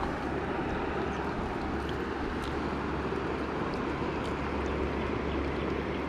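Steady rush of river water, with a few faint clicks.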